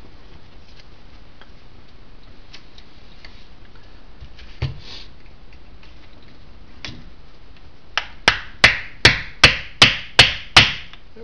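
Light steel hammer tapping on the Jaguar E-Type's pedal-box lever assembly to free a tight-fitting part: a couple of single soft knocks, then a quick run of about eight sharp, ringing strikes, nearly three a second, near the end.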